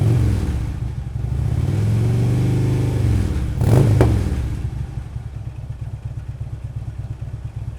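Harley-Davidson touring bike's V-twin engine through Vance & Hines Monster Oval slip-on mufflers, revved in place. There is a held rev of about two seconds, then a quick sharp blip, and then it drops back to a lumpy idle.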